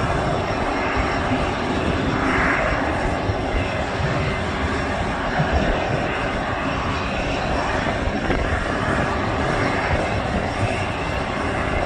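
Steady jet-turbine noise from a parked Boeing C-17A Globemaster III, an even rush with faint high tones on top.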